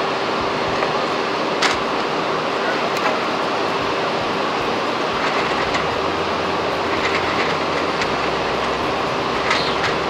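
Steady machinery noise with one constant hum running under it. A few light knocks come as wooden hive frames are set into a plastic nuc box.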